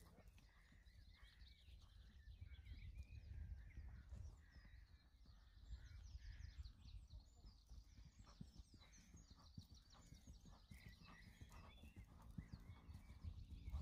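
Faint outdoor sound of a horse moving on grass: soft, irregular hoofbeats picked up from a distance. Small birds chirp throughout, over a low rumble.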